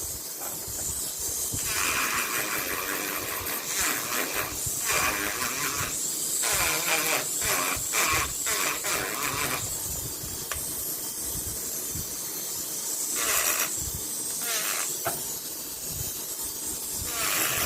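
Rubbing and scuffing strokes on a steering knob's metal surface, as it is buffed to a rough finish so paint will stick. The strokes come in scratchy bursts of a second or two with short pauses, quicker for a stretch in the middle.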